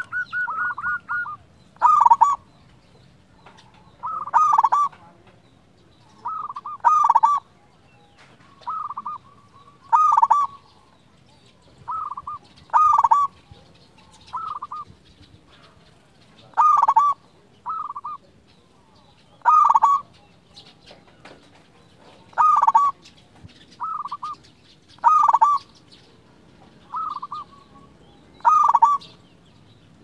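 Local zebra dove (perkutut) cooing, short phrases of rapid coos about every two seconds, with a quicker rolling trill at the start.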